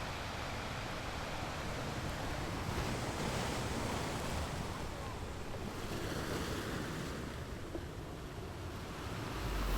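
Ocean surf washing onto a beach, the noise swelling and easing in slow surges, with wind buffeting the microphone.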